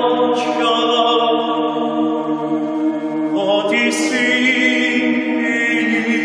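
Mixed-voice choir singing a slow Ukrainian folk song in sustained chords, with a bowed cello holding a low line beneath. Sung consonants hiss briefly about half a second in and again about four seconds in.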